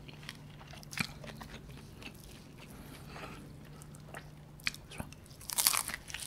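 Close-up eating sounds: soft chewing with scattered mouth clicks, then a loud crunchy bite into flaky puff pastry of a beef Wellington near the end.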